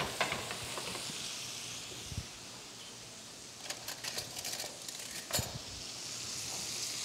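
Porterhouse steak searing in butter in a hot pan: a steady sizzle, easing a little midway, with a few light clicks and a knock about five seconds in.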